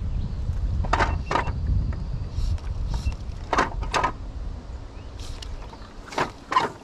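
Fly line being stripped in by hand through the rod guides in pairs of quick pulls, each pull a short rasp, with a pause of about two and a half seconds between pairs. Wind buffets the microphone at first and dies away after a few seconds.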